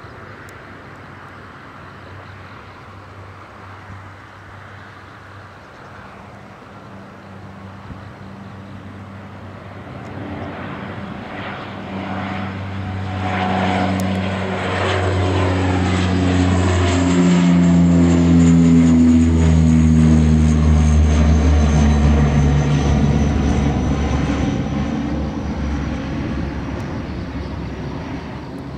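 Bombardier Q300 (Dash 8-300) twin turboprop climbing out at takeoff power, its Pratt & Whitney Canada PW123 engines and propellers droning louder as it comes closer. A little past halfway it passes, and the propeller drone and a faint high turbine whine drop in pitch before fading away.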